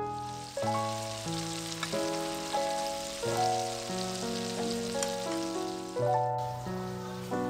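Scallops sizzling as they fry in butter in a pan, under background music of sustained melodic notes. The sizzle cuts off suddenly about six seconds in.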